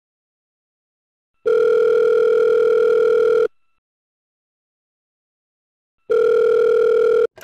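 Telephone ringback tone heard while a call rings out: a steady tone in beeps of about two seconds with long pauses. The last beep is cut short near the end as the call is picked up, followed by a brief click.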